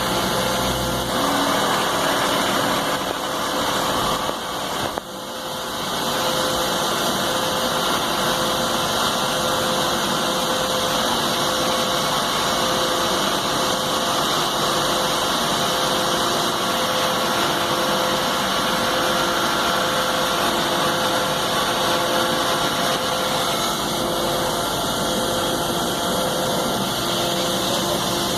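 Citizen C32 VIII CNC sliding-headstock lathe running: a steady machine whir with a hiss and a few steady tones, dipping briefly about five seconds in.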